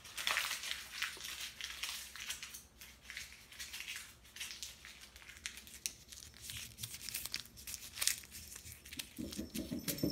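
A paper receipt being crumpled and crinkled by hand in quick, irregular crackles, a sound used to call a cat that loves it.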